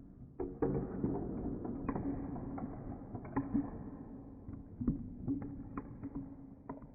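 Irregular clicks and creaks of objects being handled, over a low steady hum.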